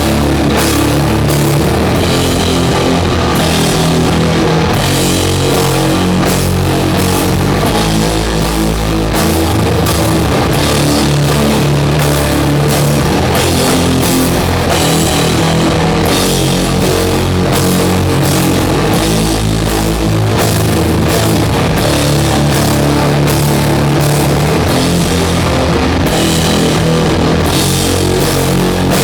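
Doom metal band playing live and loud: heavily distorted guitars and bass hold slow, drawn-out low chords that change every few seconds, over drums with steady cymbal hits.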